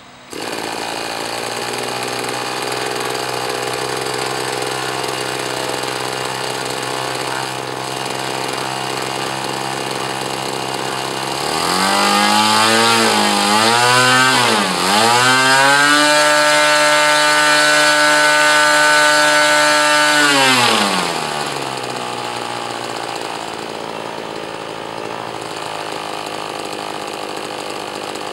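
O.S. 120AX Special model-airplane glow (nitro) engine swinging an APC 16x8 propeller. It starts from an electric starter and settles into a steady idle. About 12 seconds in it is blipped up and down a few times, then held at a high, loud whine for about five seconds, and drops back to idle about 21 seconds in.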